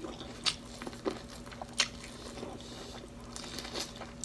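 Bites into fresh sweet corn on the cob, close to the microphone: several sharp, crisp crunches as the kernels are torn off, with chewing in between.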